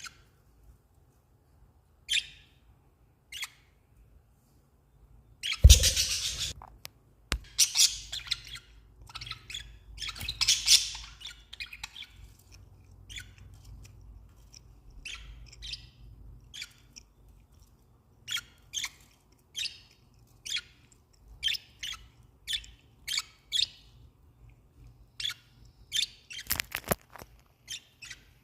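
Budgerigars chirping in short high calls, with a loud thump about six seconds in and a quick run of calls in the second half.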